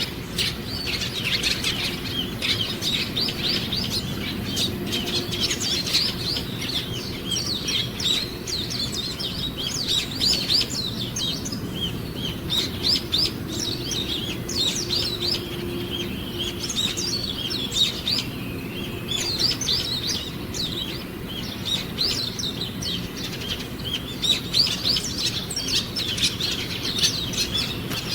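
A flock of small songbirds chirping and twittering continuously, many short overlapping calls, thinning a little around the middle and growing busier again near the end.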